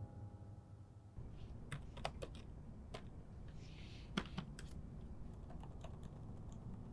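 Typing on a laptop keyboard: soft, irregular keystrokes in scattered runs with short pauses, starting about a second and a half in, over a low room hum.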